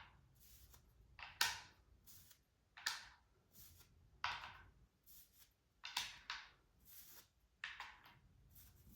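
Quoridor fence pieces being set one by one into the board's storage groove: about seven light knocks, spaced roughly a second and a half apart, with faint handling rustle between them.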